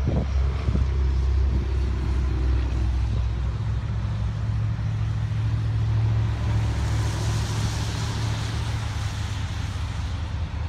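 Low, steady diesel rumble of an approaching freight train's locomotive. A car passes on the adjacent street with a rush of tyre noise about seven to nine seconds in.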